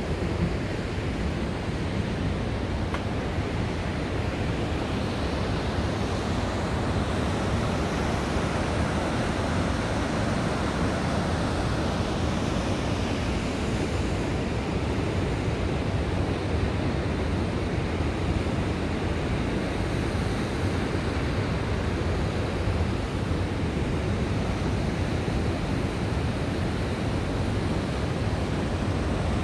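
Steady rushing of a mountain stream flowing through a deep rocky gorge below, an unbroken roar of water.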